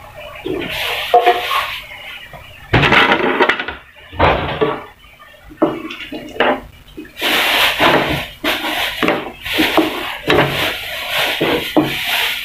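Spatula scraping and stirring sliced hotdogs in evaporated milk in a non-stick frying pan. A few strokes come in the first half, then quick repeated strokes from about halfway on.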